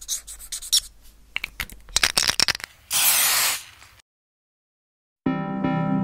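Logo-animation sound effects: a run of quick, scratchy paintbrush-stroke scrapes, then a loud spray-like whoosh about three seconds in that fades out within a second. After a second of silence, music with keyboard chords begins near the end.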